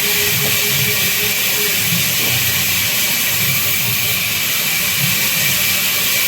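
Band saw running and cutting babool wood: a loud, steady hiss, with a low rumble underneath.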